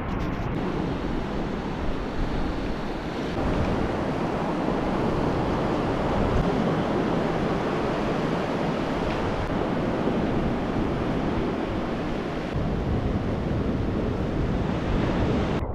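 Ocean surf washing onto a sandy beach, a steady rushing noise, with wind buffeting the microphone.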